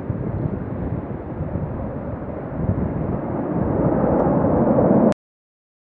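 Boeing 747-200's four jet engines at takeoff thrust as the jumbo jet climbs away, a steady rushing engine noise that grows louder over the last couple of seconds, then cuts off abruptly about five seconds in.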